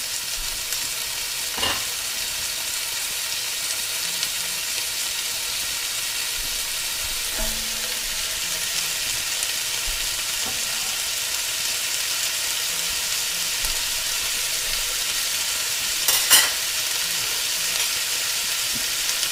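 Diced onion, celery, carrot and zucchini sizzling in hot olive oil in a Dutch oven, a steady hiss. Two short knocks cut through it, a faint one near the start and the loudest about sixteen seconds in.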